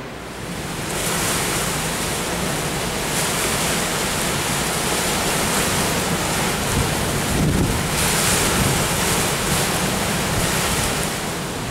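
Hurricane-force wind and heavy surf breaking on a beach, a loud steady roar of wind and water with gusts buffeting the microphone. The noise swells up about a second in.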